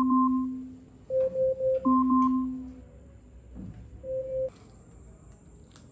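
Electronic timer alarm beeping: a repeating pattern of quick beeps followed by higher short chirps over a lower, fading tone, played twice, then one last short beep about four seconds in before it stops.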